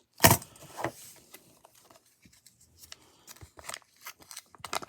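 Canadian 80% silver half-dollar coins clicking against each other as they are handled, one sharp click about a third of a second in, then a second and scattered lighter clicks.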